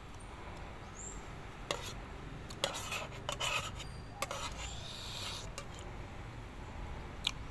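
Metal spoon and fork scraping and clicking against a plate while picking flesh off a fried mackerel: a handful of sharp clinks and a longer scrape about midway.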